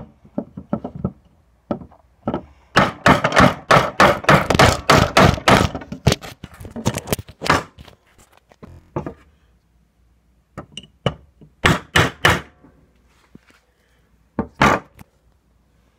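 Small hammer driving a nail through the end of a hockey stick into wood: a fast run of blows, about four a second for some five seconds, then a few scattered single strikes.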